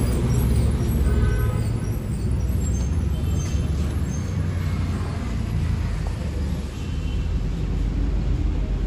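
A steady, low engine rumble.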